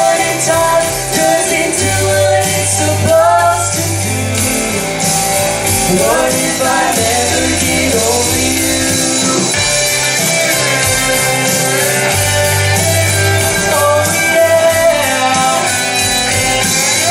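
A young man and a young woman singing a duet through microphones over instrumental accompaniment with a steady bass line.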